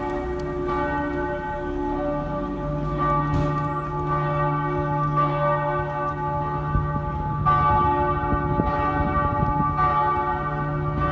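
The bells of Regensburg Cathedral ringing together in a full peal. Their strokes fall unevenly and the tones overlap, each ringing on under the next.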